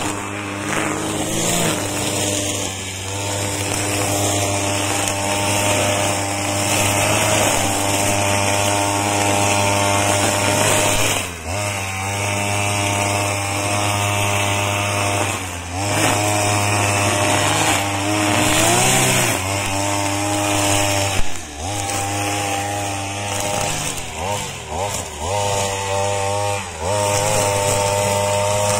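Small two-stroke brush-cutter engine on a hand-pushed wheeled mower running at high speed as its spinning blade cuts through thick weeds. Its pitch dips briefly several times under the load and climbs back each time.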